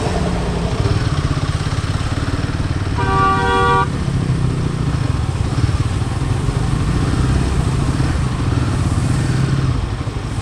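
Royal Enfield single-cylinder motorcycle engine running low and steady in slow traffic. A vehicle horn sounds once, briefly, about three seconds in.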